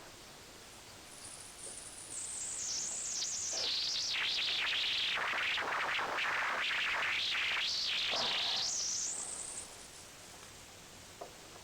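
Engine oil being sprayed onto the timing chains and gears: a continuous spray hiss that builds up over the first two seconds, holds for about eight seconds and stops, with a couple of faint ticks near the end.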